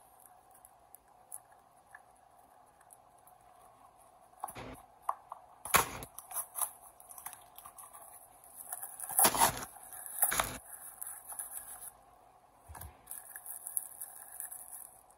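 A mail package being opened by hand: paper and plastic wrapping crinkling and tearing, with scattered clicks. There are two louder spells, one about five seconds in and one about nine to ten seconds in.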